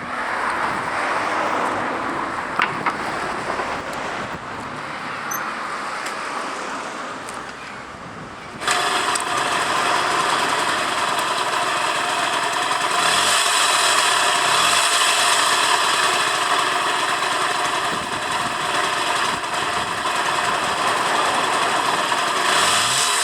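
Suzuki PV50 Epo scooter's small two-stroke engine, at first only a hiss, then about eight seconds in the engine sound comes in suddenly and runs steadily. The seller lists it as an abnormal engine noise.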